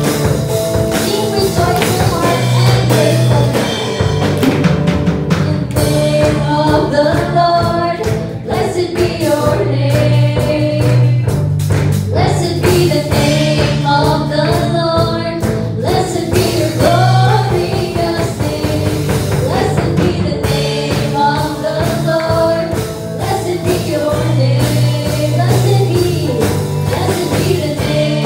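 Worship band playing a gospel song: a woman singing the melody over electric guitar, steady bass notes and a regular beat.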